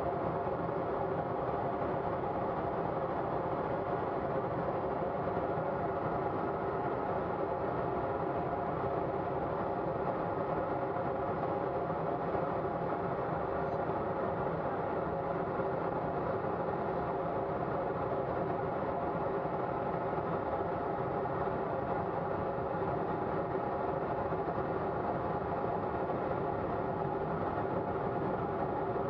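Colomban CriCri jet's engine noise and airflow heard inside its small cockpit in flight, steady and unchanging, with a few held tones over a rushing hiss.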